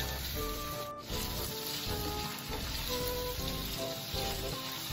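Cubes of chicken tender frying in oil in a nonstick pan, sizzling steadily as the meat browns.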